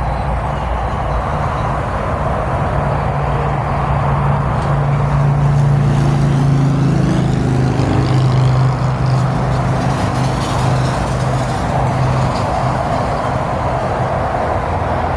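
Steady tyre and engine noise of cars passing on a multilane highway. About a third of the way in, a deeper engine drone grows louder, holds for several seconds, then fades as the vehicle passes.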